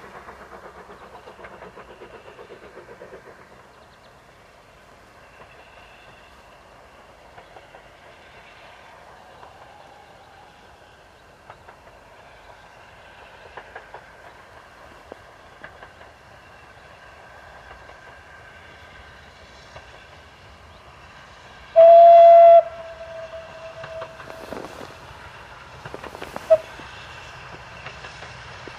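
Steam tank locomotive approaching under steam, its exhaust and running sounds steady, then a short loud whistle blast about three-quarters of the way through that fades into a quieter held note, and a brief second toot a few seconds later.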